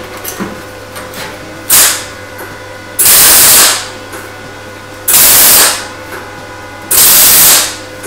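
MIG welder stitch-welding the seam of a thin sheet-steel car inner sill: four bursts of loud welding crackle, the first brief and the other three under a second each. The seam is welded in short stitches rather than one continuous run, to keep the panel from warping.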